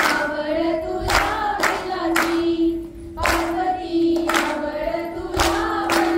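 Women singing a Konkani fugdi folk song together, with sharp hand claps struck in time about every half second to a second.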